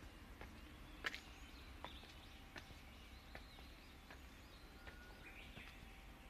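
Faint footsteps climbing stone steps, a soft tap about every three-quarters of a second, over quiet outdoor background with a few faint bird chirps.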